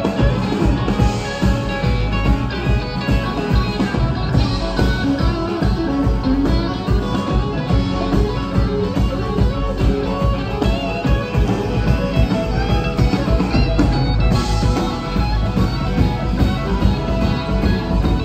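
Live rock band playing: electric guitars, bass guitar, keyboard and drums in a steady, full-band groove.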